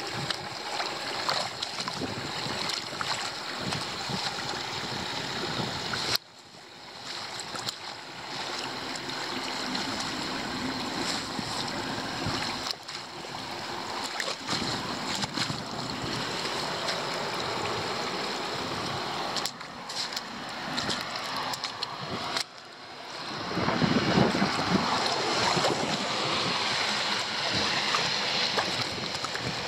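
Backed-up rainwater rushing and gurgling down a leaf-clogged roadside drain, a steady wash of water noise that breaks off abruptly several times.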